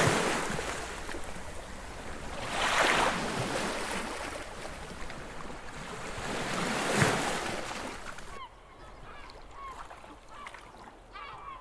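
Sea waves breaking and washing in three surges, each swelling and fading. About eight seconds in the surf cuts off abruptly, leaving quieter background with short, repeated honking bird calls.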